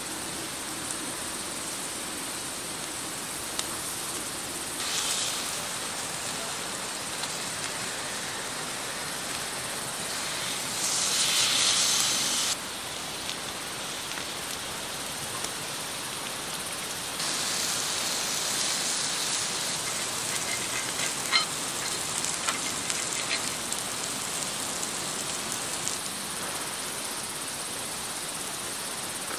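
Food sizzling on a grill over a fire pit, with the fire crackling. The sizzle swells loudly for about two seconds near the middle, and a few sharp crackles stand out later.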